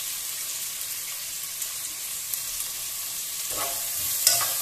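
Sliced onions sizzling steadily in hot oil in a nonstick pot. Towards the end a spatula stirs them, scraping against the pan.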